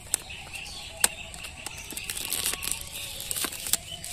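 Scissors snipping and clear plastic shrink wrap crinkling as it is cut and peeled off a smartwatch box, with two sharp clicks in the first second.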